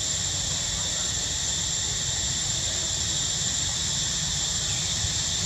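Steady, unbroken high-pitched insect drone, over a constant low rumble.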